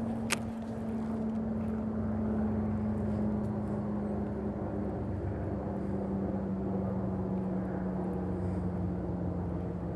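Steady distant engine drone whose pitch falls slowly and evenly throughout. A single sharp click sounds just after the start.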